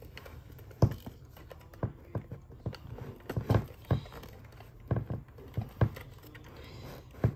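Irregular small plastic clicks and knocks, about a dozen, as the plastic cassette door of a Cricket talking doll is pushed and tapped against the doll's back while being worked onto its hinges.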